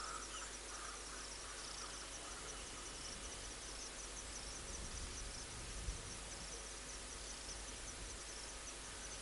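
Insects chirping steadily in the bushveld, a high-pitched pulsing call repeating several times a second over a soft hiss. A few lower chirps come in the first two seconds, and a faint low thump about six seconds in.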